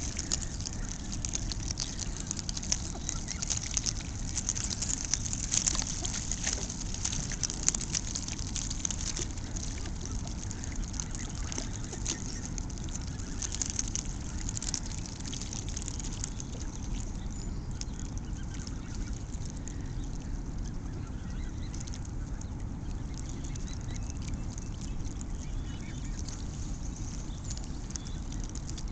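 A flock of Canada geese splashing and dabbling in the shallows, with goose calls, over a steady low rumble. The crackle of splashing is busiest in the first half and thins out later.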